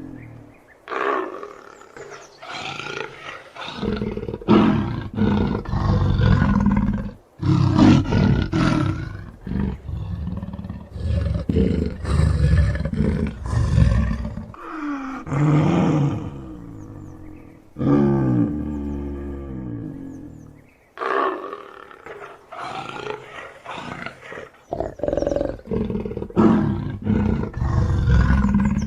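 Leopard roaring: several bouts of loud, rough roars, broken by short pauses.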